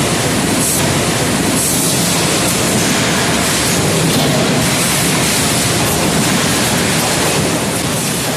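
Loud, steady machinery noise from a working automatic forging line, without distinct separate hammer blows.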